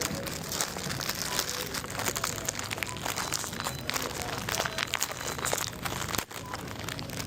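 Continuous crinkling and rustling of plastic, with many small clicks and crackles, as bagged or wrapped goods are handled.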